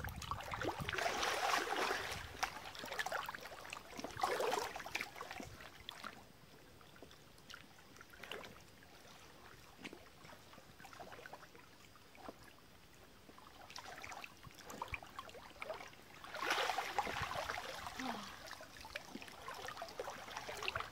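Water splashing and swishing as people wade through a waist-deep stream. It comes in swells, loudest near the start and again about three quarters of the way through, with a quieter stretch between.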